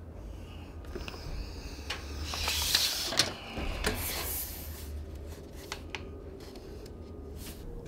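Steel tape measure in use: the blade rattles as it slides along the case, in a rush that builds to about three seconds in and ends in a sharp click, with smaller clicks and taps around it.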